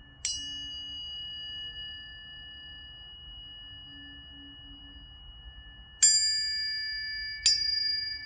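Tuning forks struck three times, about a quarter second in, about six seconds in and again a second and a half later. Each strike gives a sharp ting that settles into clear, steady ringing tones overlapping those still sounding. The strike at six seconds is the loudest.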